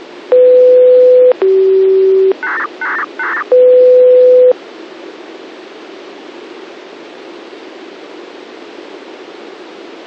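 Disaster-prevention radio signal received on a 69.465 MHz receiver. Out of steady radio hiss come a loud steady tone for about a second, a lower tone for about a second, three short buzzy bursts, and the first tone once more. These are the signal tones that open a municipal broadcast, and the open channel then hisses steadily.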